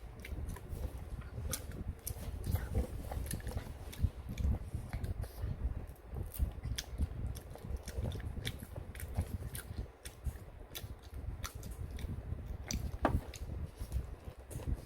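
A person chewing and eating rabokki (ramen noodles and chewy rice cakes) close to the microphone, with many small sharp wet mouth clicks throughout.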